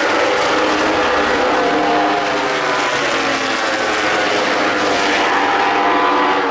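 Several racing motorcycle engines running at high revs on the circuit at once, a steady, overlapping drone whose pitches drift slowly down and back up.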